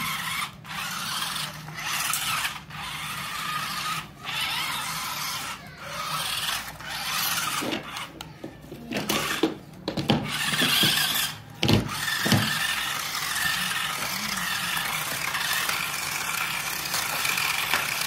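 Electric drive motors and gearbox of a small double-sided stunt RC car whirring with a thin whine, starting and stopping again and again as it drives, with its tyres scrubbing on artificial turf. A couple of thumps about two-thirds of the way in.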